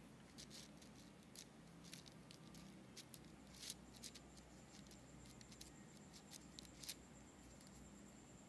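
Near silence with faint scratching and soft clicks of a pen drawing lines on paper. A faint, high-pitched steady whine comes in about four seconds in.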